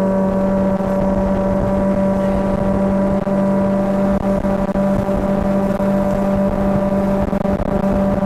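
Motorboat engine running steadily at one pitch while under way, with wind buffeting the microphone.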